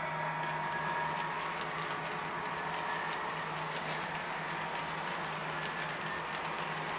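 HO-scale model passenger train running along the layout track: a steady motor hum with a running rumble and light, irregular clicks of the wheels over the rail joints.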